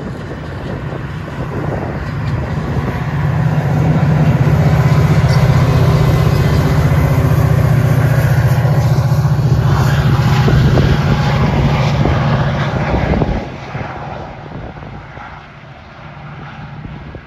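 Metra diesel locomotive pushing a train of bi-level commuter coaches out under power. Its engine is loud and steady as it passes close, then drops off sharply about 13 seconds in and fades as it pulls away.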